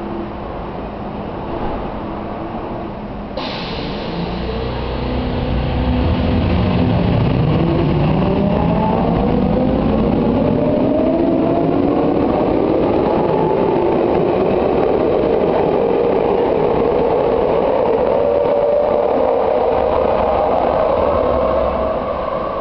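Medellín Metro electric train pulling out of the station: a hiss starts suddenly about three seconds in, then the traction motors' whine rises steadily in pitch over several seconds as the train accelerates and grows louder, easing off near the end as the train leaves.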